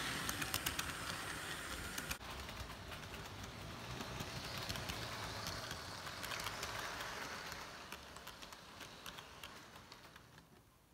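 Model trains rolling past on the track, their wheels clicking rapidly over the rail joints. The sound changes abruptly about two seconds in and fades steadily toward the end.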